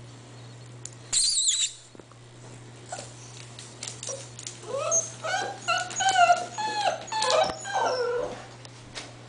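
Eight-week-old English Bull Terrier puppies whining. A sharp, very high squeal comes about a second in, followed by a run of short whimpers that rise and fall in pitch from about four and a half seconds to eight seconds, with scattered small clicks.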